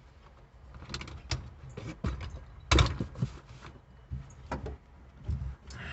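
Scattered clicks and clunks of hand tools being picked up and handled. The loudest is a sharp knock about three seconds in.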